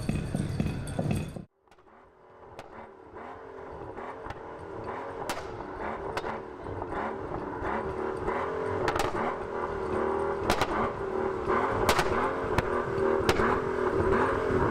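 Mercedes S65 AMG's twin-turbo V12 running at low revs through an Akrapovič exhaust, growing steadily louder, with a few sharp clicks from the exhaust. It comes in just after a sudden cut that ends a different sound about a second and a half in.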